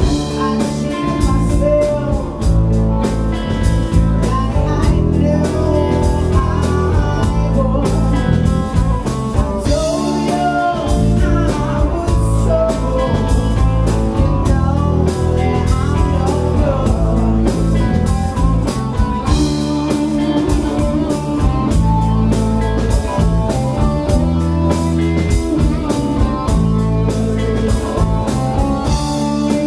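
Live band playing at a steady level: electric guitars, electric bass and drum kit.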